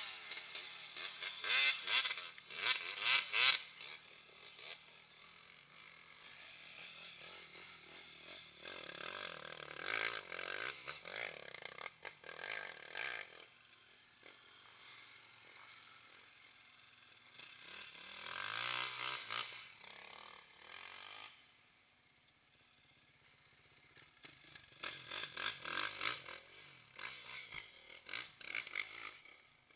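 Enduro motorcycles revving hard as riders push one after another through a muddy bog hole. The engine pitch rises and falls with each burst of throttle, in several passes with quieter gaps between.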